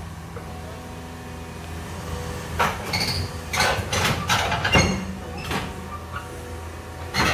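A Caterpillar 320 Next Gen excavator's diesel engine runs steadily while a run of loud metallic clanks and knocks comes from its steel tracks moving over the trailer deck and ramps as it is unloaded. The clanks are grouped in the middle, with one more near the end.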